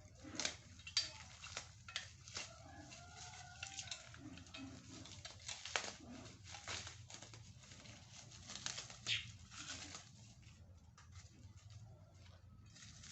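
Irregular light clicks and knocks of hard parts and packaging being handled, thinning out near the end, with a faint bird call in the background.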